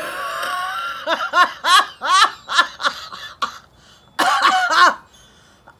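A woman's coughing fit: a strained, breathy gasp, then a run of short voiced coughs about three a second, and after a brief lull a second burst of coughs.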